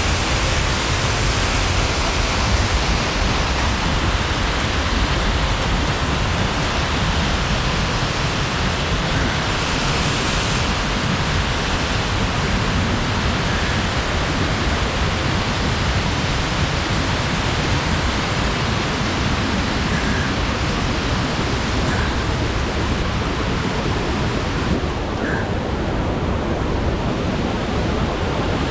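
Lower Reid Falls pouring over rock into a rushing, boulder-strewn mountain creek: a loud, steady rush of water that holds at the same level throughout.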